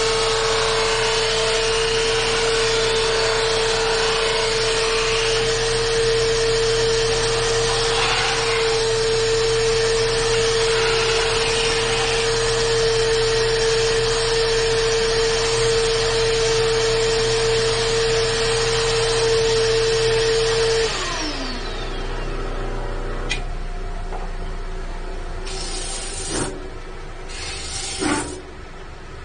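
Harbor Freight disc sander running with a shop vac hooked to it for dust extraction, a steady whine as poplar frame ends are sanded. About 21 seconds in a motor switches off and winds down with a falling pitch, leaving a quieter hiss and a few short scraping sounds near the end.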